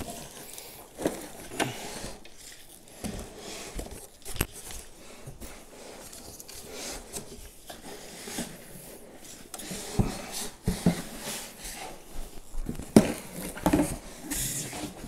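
Cardboard box and foam packing scraping and rustling as a heavy LED light panel is lifted and slid out, with scattered knocks and bumps, most of them near the end.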